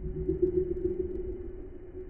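A steady low hum that wavers slightly, over a low rumble.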